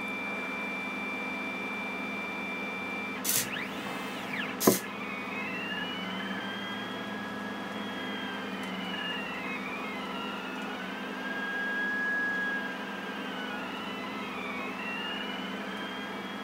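Pen plotter's stepper motors whining as the machine moves its pen. The whine holds one steady pitch at first. Two sharp clicks come a few seconds in. Then two pitched whines glide up and down in overlapping arcs as the motors change speed to trace a circle.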